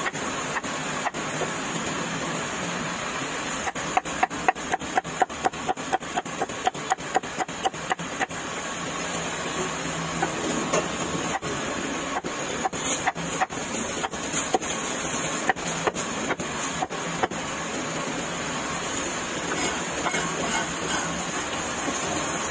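Meat being chopped with a knife: a quick run of strokes, about four or five a second, for some four seconds, then scattered single chops. Behind it is the steady hiss of heavy rain.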